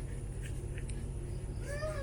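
A steady low hum with one short call, rising then falling in pitch, near the end.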